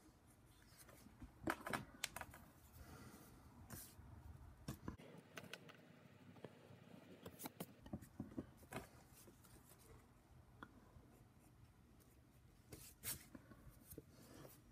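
Faint sounds of drawing on paper: a pen's short scratching strokes, the sheet and drawing tools being handled, and an eraser rubbed over the paper, with a few light taps.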